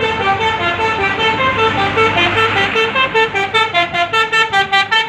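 Tour bus basuri air horn playing a fast melody of short stepped notes, several a second, without a break.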